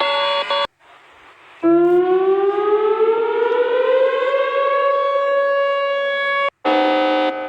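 Civil defense (air-raid) siren winding up: one stacked tone rises in pitch for about three seconds, then holds steady. It is preceded by the end of a multi-tone electronic alert and about a second of hiss, and near the end it cuts abruptly to another steady multi-tone alert tone.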